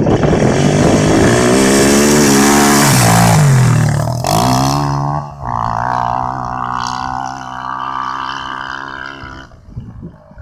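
ATV engine revving hard: its pitch sags and dips briefly about four seconds in, climbs again and holds steady, then cuts off sharply near the end.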